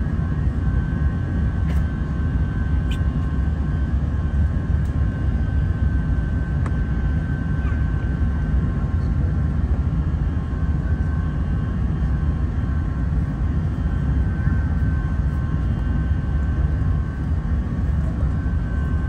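Airbus A380's Rolls-Royce Trent 900 jet engines running steadily: a deep rumble under a steady high whine.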